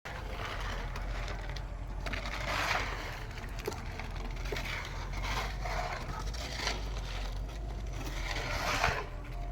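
Repeated rough scraping, rising and falling every second or two, over a steady low machine hum.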